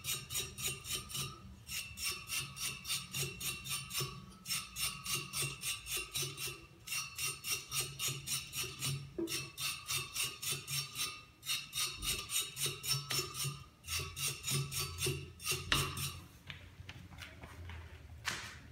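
Brass wire brush scrubbing grass buildup off the hardened steel blades of a Toro GreensMaster Flex 21 reel mower's cutting reel. It goes in quick strokes, about three or four a second, with a few short pauses, and stops about 16 seconds in.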